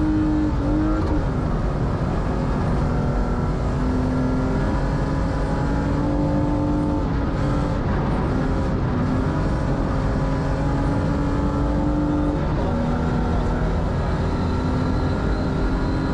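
BMW 325i rally car's straight-six engine held at high revs, heard from inside the cabin, over a steady rush of gravel and road noise. Its pitch drops sharply at upshifts about a second in and again about twelve seconds in.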